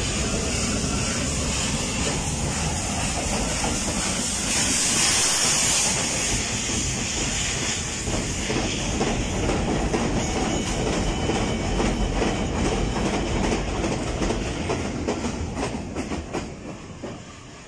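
A train running past close by, its wheels clattering over the rail joints with a heavy rumble. A hiss swells briefly about five seconds in, and the sound fades near the end.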